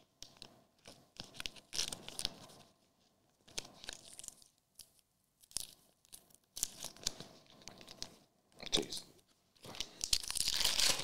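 Plastic trading-card sleeves and cards being handled: irregular bursts of crinkly rustling and scraping as cards are slid into soft plastic sleeves. Near the end comes a louder, longer crinkle as a foil-wrapped card pack is handled.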